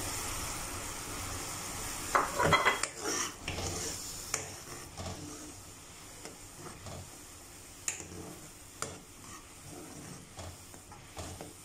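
Tomato-chilli gravy sizzling and bubbling in a pan over a high gas flame while a metal spoon stirs it, with scattered light clinks of the spoon against the pan. The hiss is louder early on and fades.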